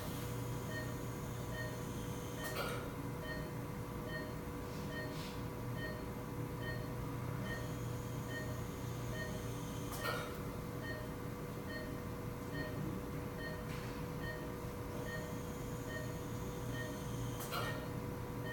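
Operating-room patient monitor beeping steadily with the patient's pulse, about three short beeps every two seconds, over a constant hum of theatre equipment. A few sharp clicks stand out, about four across the span.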